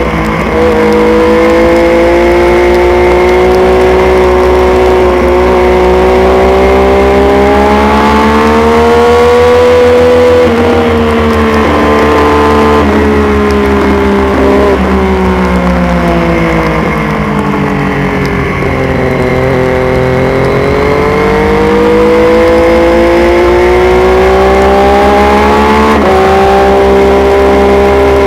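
600cc supersport race motorcycle engine at racing revs, heard from on board. Its pitch climbs, drops with a gear change about ten seconds in, and sinks through the middle as the bike slows. It then climbs again, with another gear change near the end, over steady wind rush.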